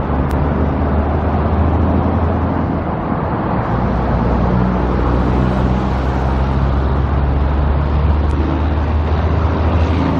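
A car driving along the road: a steady low engine hum over road noise, the engine note shifting about three and a half seconds in.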